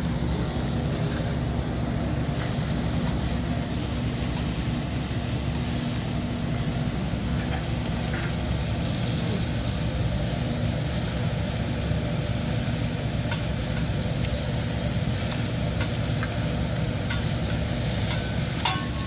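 Food sizzling on a hibachi griddle over a steady low rumble, with a short metallic clink near the end.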